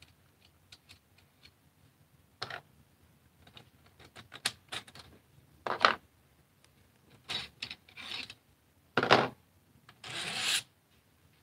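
Plastic parts of a 3D-printed Caliburn foam dart blaster being handled and taken apart on a table: faint clicks and several short scraping rubs and clacks.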